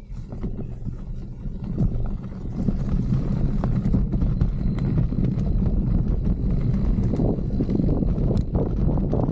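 Mountain bike rolling over rough trail, with the tyres and frame rattling in a run of irregular knocks over a steady rumble of wind on the microphone. It gets louder about two seconds in as speed picks up.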